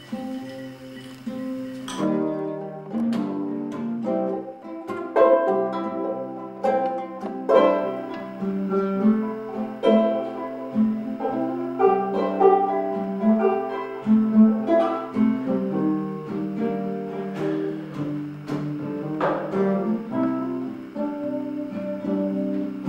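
Guitar music: single plucked notes picked one after another, growing fuller about two seconds in.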